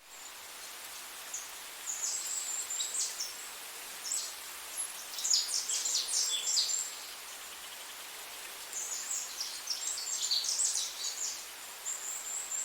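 Small birds chirping and twittering in high, rapid bursts, three spells of busy calling with brief lulls between, over a steady faint outdoor hiss.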